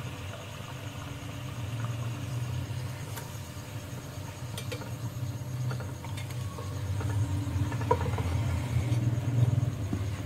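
A pastry cup frying in a small pan of hot oil, the oil faintly sizzling, while metal tongs click against the pan a few times. A steady low hum runs underneath and is the loudest sound.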